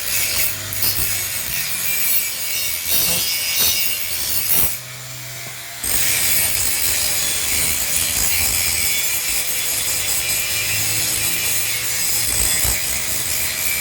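Workshop metalworking: a steady, harsh rasping of metal being cut or ground. It drops out briefly about five seconds in.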